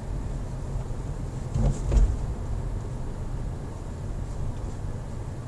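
Road noise inside a moving car's cabin: a steady low rumble of engine and tyres, with two short low thumps about two seconds in.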